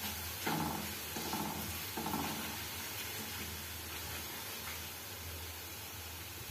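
Hot coconut oil sizzling in an iron kadhai with onion and garlic peels frying in it, and a steel spoon stirring and scraping against the pan a few times in the first two seconds.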